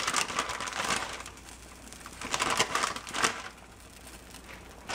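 Clear plastic bag crinkling in a few bursts as shredded cheese is shaken out of it over the pan.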